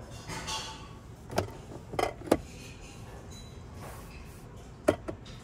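Glove box of a 2024 Kia Seltos being opened by hand: a quick series of three sharp plastic clicks and knocks from the latch and lid, then two more clicks near the end.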